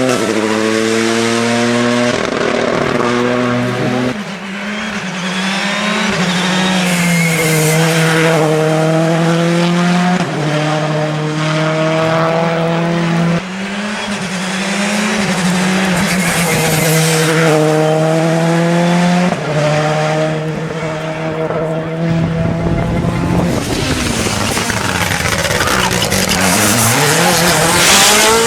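Rally car engines revving hard. The pitch climbs through each gear and drops back at each shift, over and over, with abrupt changes where one car gives way to another.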